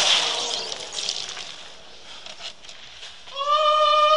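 Tortilla chips spilling and rustling as a heap settles, fading out over about two seconds. Then, a little over three seconds in, a man lets out a long, loud cry held on one steady pitch.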